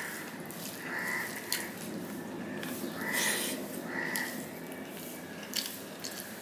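A man eating rice and mutton curry by hand from a steel plate: wet chewing and mouth sounds, with a few sharp clicks. Several short, harsh calls sound through it, about a second, three seconds and four seconds in.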